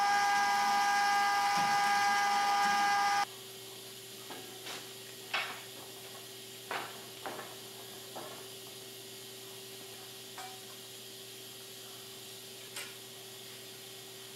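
A loud ringing tone of several steady pitches that cuts off abruptly about three seconds in. Then a scattered series of short knocks and clinks as the steel plates of a press frame are handled and fitted, over a steady low hum.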